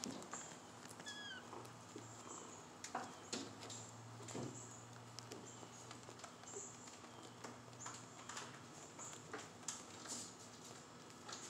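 Kittens scuffling and wrestling on a concrete floor: scattered light taps and scratches, with one short high squeak about a second in.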